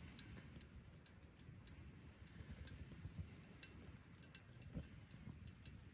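Near silence with faint, irregular small ticks and clicks scattered throughout, over a faint low rumble.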